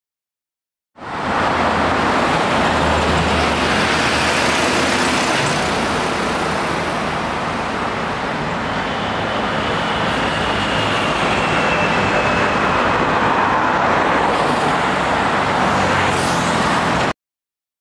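Road traffic on a city street: engines and tyres of a truck and cars passing in a steady rush. It starts abruptly about a second in and cuts off abruptly near the end.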